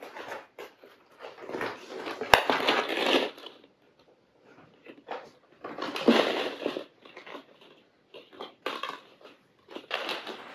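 Hollow plastic ball-pit balls clattering and rustling against each other as kittens move through them, in irregular bursts with short quiet gaps. The loudest bursts come about two to three seconds in and again about six seconds in, with a sharp click near two seconds.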